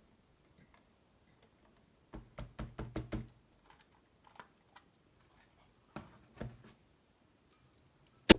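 Hard knocks: a quick run of about seven a couple of seconds in, two more a few seconds later, then one much louder sharp click near the end.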